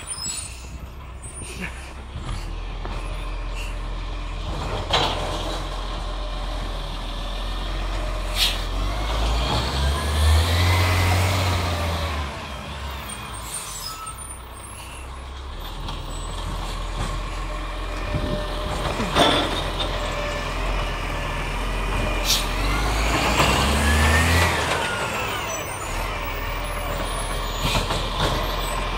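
Side-loader recycling garbage truck's diesel engine running as the truck drives past, revving up and easing off twice as it pulls away and slows between bins. There are a few sharp hisses from the air brakes.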